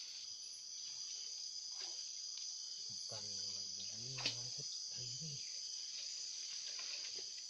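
Steady, high-pitched chorus of insects, a continuous buzzing trill, with a single faint click about four seconds in.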